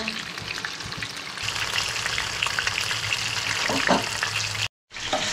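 Chitol (clown knifefish) steaks sizzling in hot oil in a grill pan, a steady crackling hiss that grows stronger about a second and a half in, with a brief break near the end.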